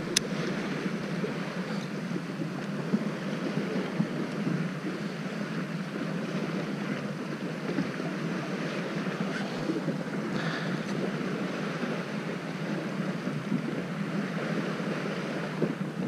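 Steady hum of a fishing boat's engine under wind and water noise, with a sharp click near the start.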